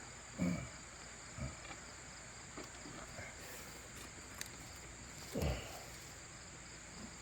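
Insects chirring steadily in a high, even tone. A few brief low sounds rise above it, the loudest about five and a half seconds in.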